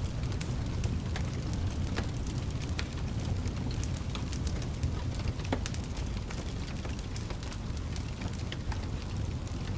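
Wood fire burning in a fireplace, a steady low rumble with scattered sharp crackles and pops.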